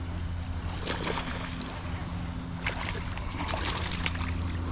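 Hooked largemouth bass splashing and thrashing at the water's surface while being reeled toward the bank, in two short bouts about a second in and again past the middle. A steady low hum runs underneath.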